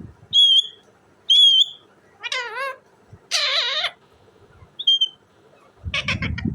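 Pet ringneck parrot calling: two short high whistles, then a wavering call and a harsh screech, another brief whistle, and near the end a rapid burst of sharp chatter.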